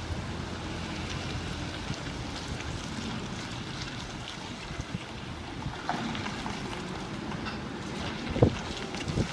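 Wind buffeting the microphone: a steady low rumble, with a few faint knocks and a sharper one near the end.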